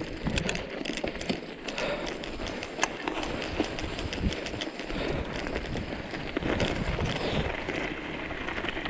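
Footsteps of hikers on a mountain trail, a run of irregular crunches and knocks as they walk down a slope.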